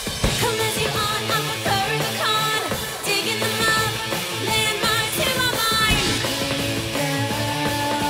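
Live rock band performance: a woman sings over electric guitar, keyboards and drums, with a sharp hit right at the start.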